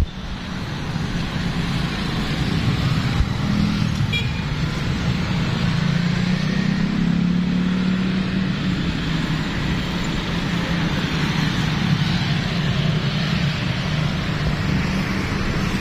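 Steady road traffic: vehicle engines and tyres running past, growing louder around the middle.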